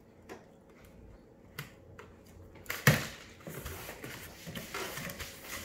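Cardboard shipping box being cut and opened by hand with scissors: a few faint clicks, a sharp snap about three seconds in, then rustling of the cardboard flaps and packing.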